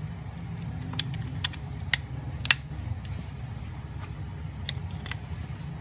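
Plastic clicks and taps of a Nokia feature phone's housing parts being handled and fitted together: a few sharp clicks about half a second apart, the loudest about two and a half seconds in, then two fainter ones near the end, over a steady low hum.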